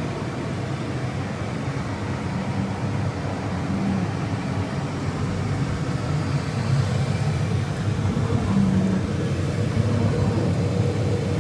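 A vehicle running steadily: a low rumble that grows a little louder toward the end.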